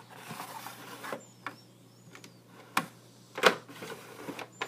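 Makeup items being sorted through and picked up: a handful of scattered clicks and knocks, the loudest about three and a half seconds in, with soft rustling in the first second.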